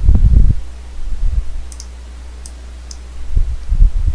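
Dull low thumps, a cluster at the start and another near the end, with a few short, faint computer mouse clicks in between over a steady low hum.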